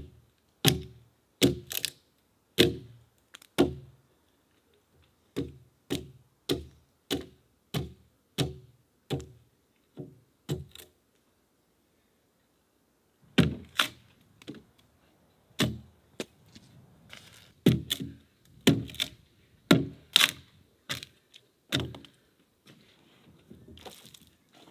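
Axe blows chopping into a peeled log, about one and a half strokes a second in a steady run, then a short pause and a second run of heavier, less even blows. Softer knocks near the end.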